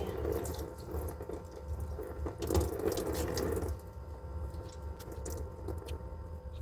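Water splashing as hair is rinsed with water from a bottle and the wet hair is worked by hand, loudest about two and a half to three and a half seconds in. A low steady hum runs underneath.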